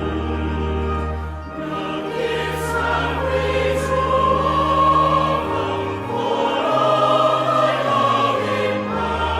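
A hymn sung by many voices, accompanied by church organ whose held bass notes change every second or so.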